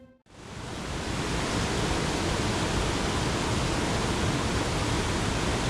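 Steady rushing of a rocky mountain stream with small waterfalls, running high after heavy rain. It fades in about a second in after a brief silence.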